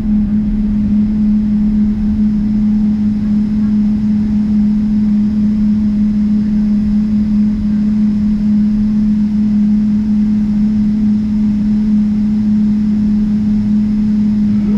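Cabin noise inside a Boeing 777-300ER taxiing: a steady low rumble with a loud, constant droning hum.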